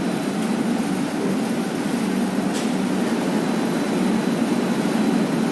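Commercial laundry machine running with a steady mechanical hum, with a faint click about two and a half seconds in.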